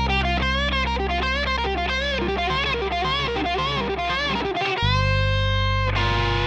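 Overdriven electric guitar playing a fast rock lead lick with string bends and vibrato. About five seconds in it settles on a held bent note, an index-finger bend, then ends with quick repeated picked notes.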